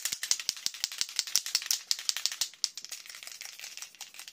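Rapid rattling: sharp clicks about six or seven a second, loudest for the first two and a half seconds, then going on more softly and faster.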